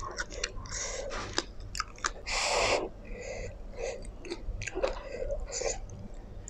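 Close-miked eating of black bean noodles: wet chewing with small lip smacks and mouth clicks, and one louder slurp of noodles about two and a half seconds in.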